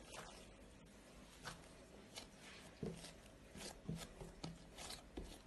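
Faint, irregular soft thuds and taps of bread dough being kneaded by hand on a marble countertop.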